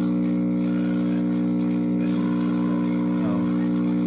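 Steady electrical hum from a 1956 RCA Victor four-speed portable record player, switched on with no sound coming from the record: one low, unchanging hum with several even overtones. It is a fault that the owner says needs work.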